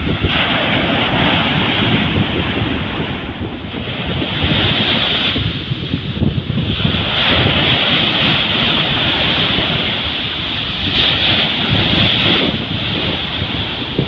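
Sea waves breaking and washing up a sandy beach: a continuous hiss of surf that swells and eases several times as each wash of foam comes in and draws back. Wind buffets the microphone underneath with a low rumble.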